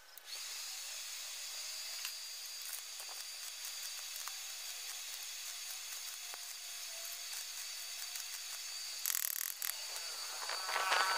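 Stick (arc) welding: the electrode arc crackles and sizzles steadily, with a couple of short louder bursts near the end.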